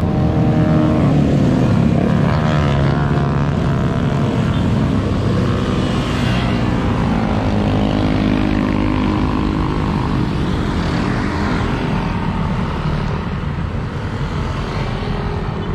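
A stream of motorcycles and scooters riding past one after another, their engines overlapping in a continuous drone whose pitches bend up and down as each bike goes by. The traffic thins and the sound eases a little toward the end.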